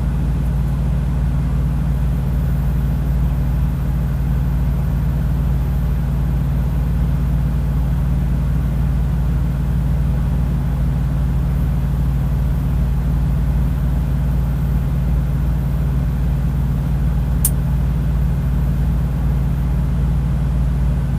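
Diesel truck engine idling, a steady low drone with no change in speed, with one brief click about seventeen seconds in.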